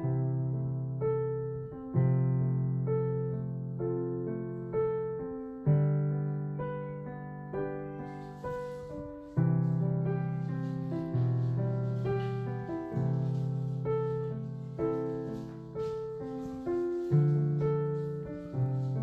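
Background piano music: slow chords struck about every two seconds, each fading before the next. A faint hiss joins about eight seconds in.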